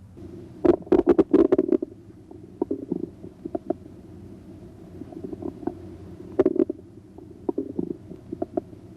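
Bowel sounds heard through a stethoscope's diaphragm over the right lower quadrant of the abdomen: a series of irregular clicks and gurgles over a low steady hum. The gurgles come thickest about a second in and again around six and a half seconds.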